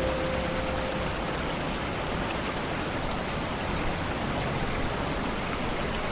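Steady rain falling on a lake, an even hiss of drops on water. A held musical note fades out about a second in.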